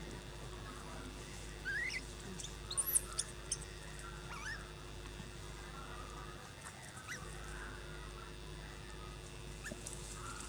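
Short, high squeaks that rise sharply in pitch, mostly in a cluster about two to three and a half seconds in, with a few single ones later, over a steady low hum.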